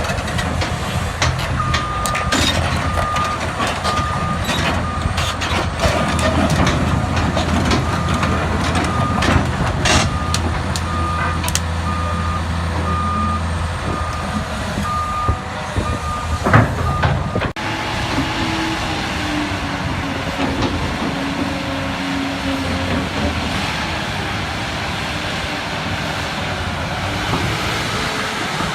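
Kobelco excavator's diesel engine running, with a warning alarm beeping at a steady, even pace over knocks and clanks. The beeping stops at an abrupt change about halfway, and the engine runs on with a hiss.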